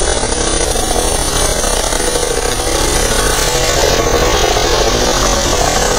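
Helicopter hovering low and descending to land: a steady, loud noise of rotor and turbine engine, with a faint wavering tone through it.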